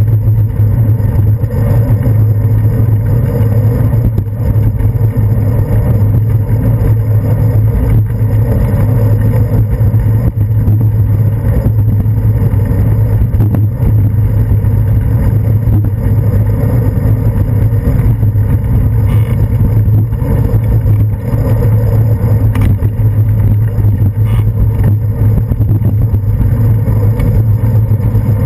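Steady low rumble of a bicycle moving through city traffic, picked up by a GoPro Hero 2 on the handlebars, with the noise of buses and taxis around it.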